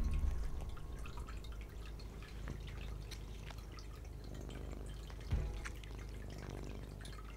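A cat licking a Churu paste treat from the tip of its tube: a run of small, irregular wet clicking laps. A dull thump about five seconds in.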